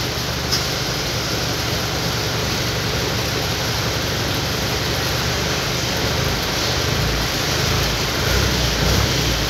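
A delivery truck's engine idling, heard from inside the cab, under a steady hiss; the low rumble swells a little near the end.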